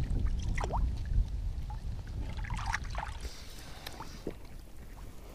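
Pond water sloshing and trickling around hands holding a large pike in the shallows as it is released, with a low wind rumble on the microphone.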